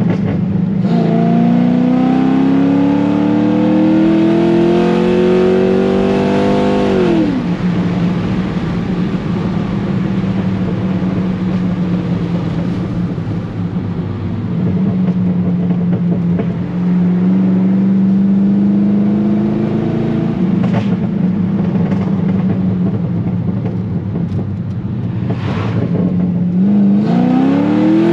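Chevrolet Corvette C5's V8 through a Corsa exhaust, accelerating under way: the engine note climbs for several seconds, drops sharply about seven seconds in, runs steadily at lower revs with a gentle rise, then climbs quickly again near the end.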